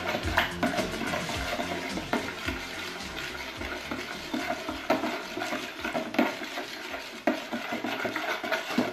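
A utensil stirring a runny mixture of eggs, milk and oil in a bowl, with irregular clicks and scrapes against the bowl's side.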